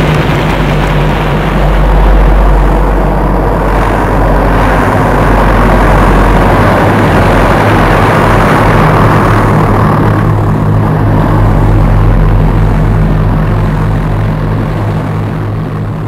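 Propeller engines droning steadily, a low, even aero-engine hum with propeller wash, fading somewhat near the end.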